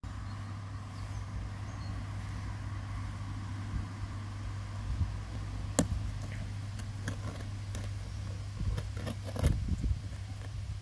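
A steady low rumble throughout. From about halfway in come a few sharp clicks and scrapes as a utility knife and hands work at the packing tape on a cardboard box, with a quick cluster of them near the end.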